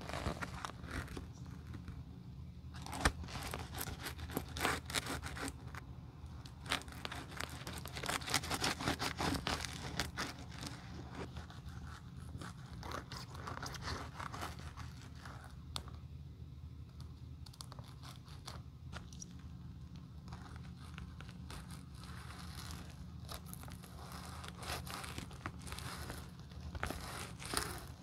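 A metal spatula scrapes and pries along the seam between a leather slipper's lining and its sole. It makes irregular, crackly scraping and tearing noises, thickest about a third of the way in, over a steady low hum.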